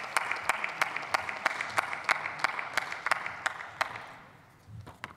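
Applause from a group of parliamentarians, individual claps standing out, dying away about four seconds in.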